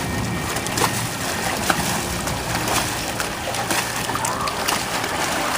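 Water splashing and sloshing: many small sharp splashes over a steady rushing noise.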